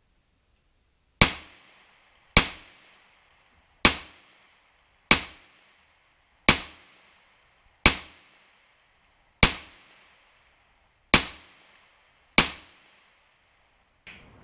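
Smith & Wesson M&P 2.0 semi-automatic pistol fired nine times in slow, deliberate single shots, about one every second and a half, each crack trailing off in a short echo.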